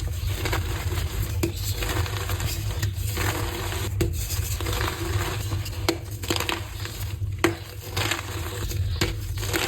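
Blocks of gym chalk being crushed and crumbled, a run of crisp crunching and crackling strokes, roughly one a second.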